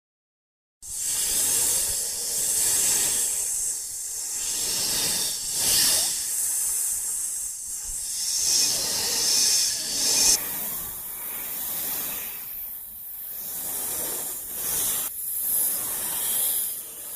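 A long, noisy hiss made as a monster sound effect, starting about a second in and swelling and easing several times before fading out at the end.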